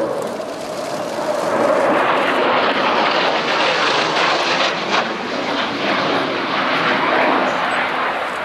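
Jet noise of a Lockheed Martin F-35B Lightning II's single Pratt & Whitney F135 turbofan as the jet flies past in a tight turn. It is a loud, steady rushing that swells about two seconds in.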